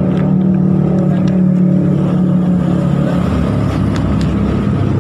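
A motor vehicle's engine running steadily with a constant hum that eases off about three seconds in. Paper and banana leaf crinkle lightly as a rice parcel is unwrapped by hand.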